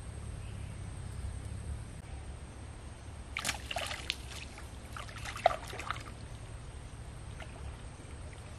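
Water splashing in two short clusters a few seconds in, the second with one sharp knock, over a steady low rumble.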